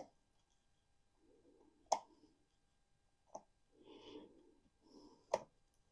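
Sharp snips of concave bonsai cutters cutting privet wood: four crisp clicks spaced a second or two apart, with soft handling sounds between them.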